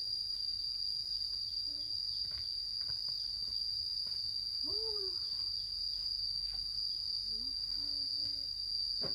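A steady, high-pitched insect trill that runs unbroken, typical of crickets or cicadas in the forest. A few faint, short calls sound beneath it around the middle.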